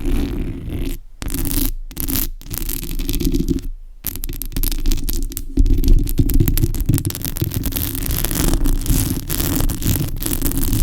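Fingernails scratching a surface close to the microphone in fast, continuous strokes, with brief stops about a second, two seconds and four seconds in.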